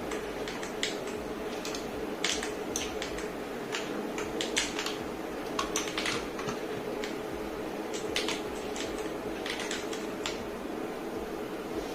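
Akko 5075S mechanical keyboard keys pressed irregularly during gameplay: scattered sharp clicks of varying strength, a few at a time, over a steady low hum.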